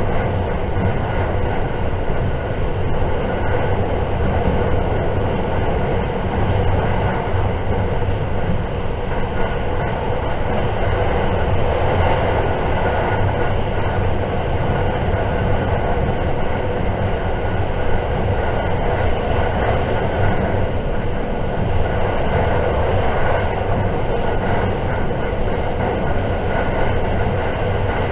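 Steady running noise of a JR 681 series limited express electric train heard from inside a passenger car: a continuous rumble of wheels on rail with a faint steady hum over it.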